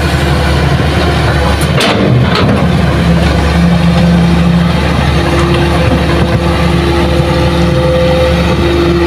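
Hitachi hydraulic excavator's diesel engine running under load while the bucket digs hard soil, with two sharp knocks about two seconds in. Its note shifts as the boom and bucket work, and a steady whine joins it about halfway through.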